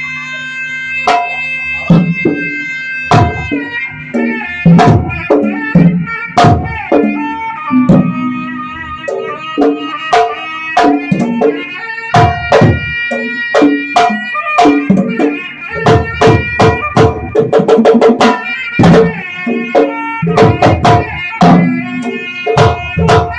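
Instrumental music with hand-drum strokes in a busy rhythm under a held, reedy wind-instrument melody.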